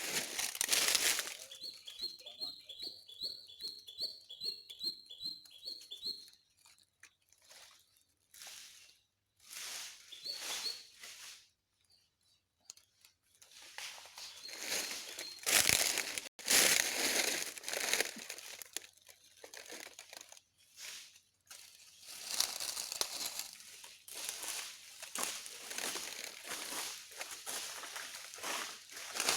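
A wild bird calls a quick run of about a dozen short, high, repeated chirps, then a few more. Bouts of rustling and crunching, the loudest of them about halfway through and through the last quarter.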